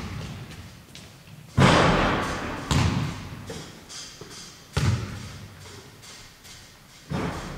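Four heavy thumps at irregular intervals, each dying away slowly as if echoing in a large hall.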